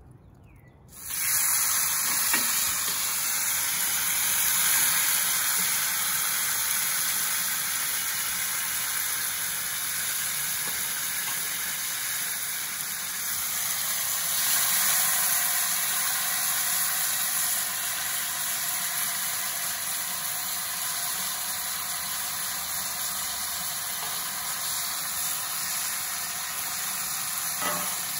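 Chicken fajita strips and sliced peppers sizzling in hot cast iron skillets. The sizzle starts suddenly about a second in as the food goes into the pan, then carries on as a steady, loud hiss.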